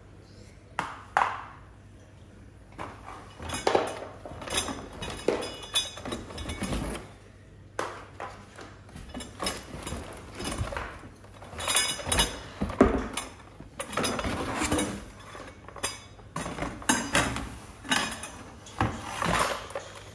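Hozelock hose reel's hard plastic parts being taken out of a cardboard box and set down: irregular knocks, clatters and rustling as the pieces bump against each other and the box.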